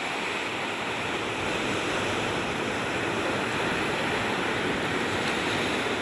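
Ocean surf breaking on the beach, a steady rushing wash with no let-up.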